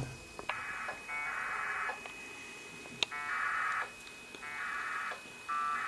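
APRS data packets heard over the ICOM ID-880H radio's speaker: four short warbling bursts of 1200-baud two-tone modem signal, each a second or less and starting with a brief steady tone, the last still going at the end. A single click about three seconds in.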